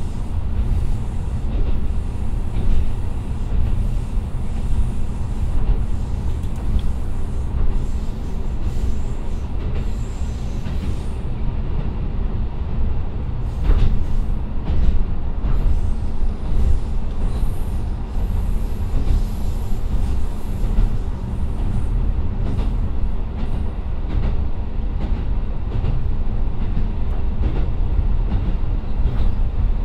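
JR Kyushu KiHa 125 diesel railcar running, heard from inside the car. Its Niigata Tekko DMF13HZ engine and the wheels on the rails make a steady low drone, with scattered clicks from the track.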